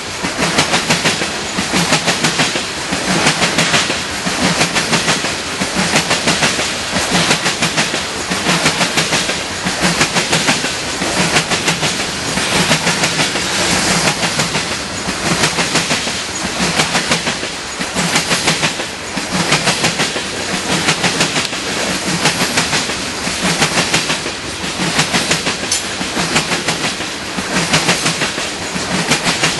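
Loaded coal cars rolling past: steel wheels clicking over rail joints amid a steady rolling rumble, swelling in a regular rhythm about every two seconds as the cars go by.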